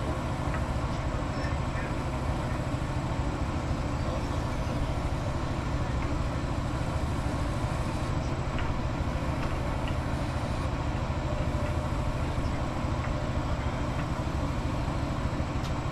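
Steady low mechanical hum of a running motor, even and unbroken.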